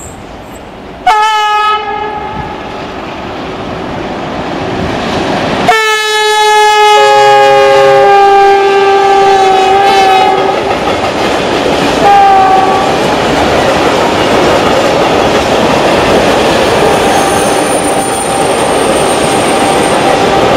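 Diesel locomotive horn: a short blast about a second in, then a long blast of about five seconds, and a brief one near twelve seconds. Under them a freight train of tank wagons rumbles and clatters over the rail joints, growing louder as it passes.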